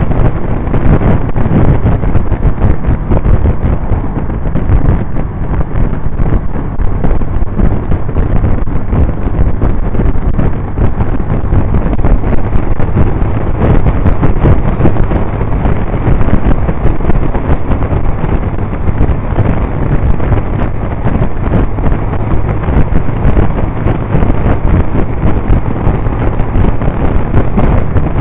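Heavy wind buffeting on the camera microphone of a Honda CBR125 riding at steady highway speed, over the steady drone of its small single-cylinder engine.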